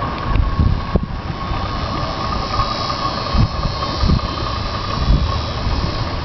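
Outboard motor running steadily as a bass boat pulls away from the ramp, with a constant whine, and wind gusting on the microphone.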